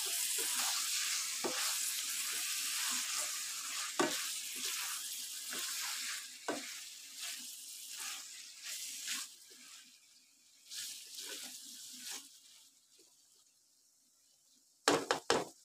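Bitter gourd and chana dal sizzling in a wok while a spatula stirs and scrapes it, with small clicks of the spatula against the pan. The sizzle fades away about two-thirds of the way through, and a few sharp knocks come near the end.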